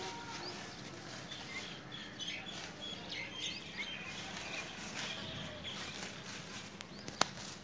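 Small birds chirping on and off over steady outdoor background noise, with one sharp click about seven seconds in.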